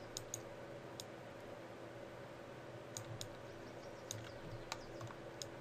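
Computer mouse clicking: about eight sharp single clicks at irregular intervals, over a steady low hum.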